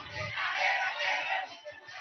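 A crowd of many voices shouting together, with no single speaker standing out.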